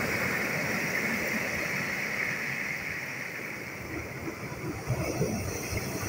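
Sea surf breaking and washing up a pebble beach, then draining back over the stones: a steady hiss of foam and moving water that eases a little midway.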